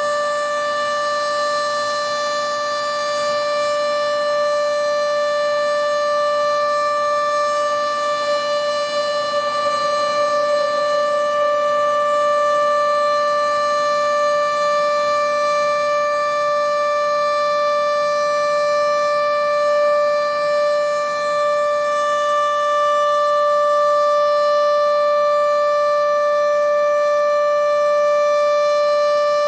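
Sentry 14V outdoor storm warning siren sounding its test, holding one steady, loud tone at full pitch.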